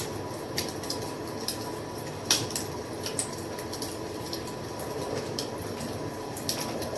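Wood fire crackling: a steady soft hiss and rustle of burning under irregular sharp pops and snaps, with one louder pop a little over two seconds in.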